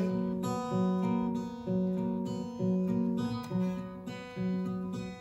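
Acoustic guitar playing chords in a live song, strummed about once a second with each chord ringing on between strokes.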